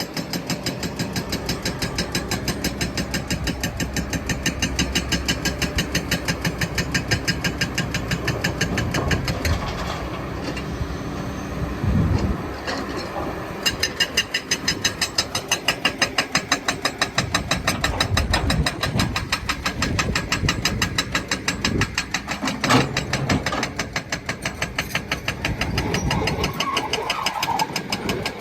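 Heavy diesel engine of a Kobelco excavator running under working load, with an even, pulsing throb and a few heavier low thumps. One sharp knock stands out about 23 seconds in.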